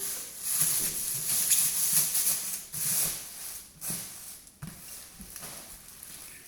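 Rustling, scraping and soft knocks from the speaker's packaging being handled as the unboxing begins.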